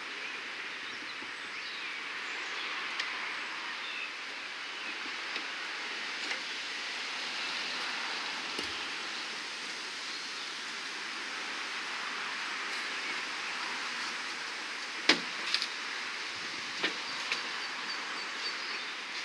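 Steady hiss of steam escaping from the overheated Renault Clio 1.2 engine bay, run with no oil and no coolant; the engine itself is not running. Near the end a few sharp metallic clicks and knocks, the loudest about fifteen seconds in.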